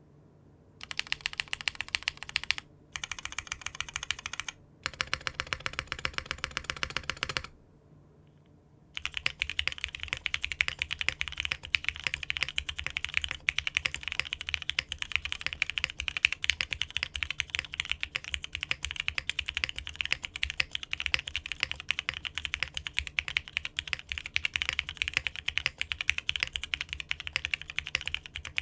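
Typing on a mechanical keyboard fitted with Cherry-profile keycaps, a rapid stream of key clacks. It comes first in three short stretches with brief gaps, stops for about a second and a half, then runs on unbroken from about nine seconds in.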